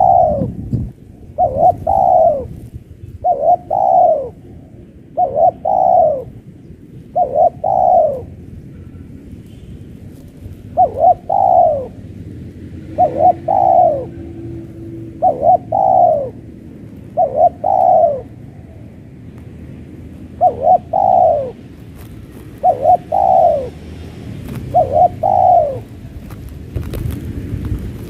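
Spotted dove cooing: a short phrase of a few quick falling coo notes, repeated about every two seconds, with one longer pause about nine seconds in.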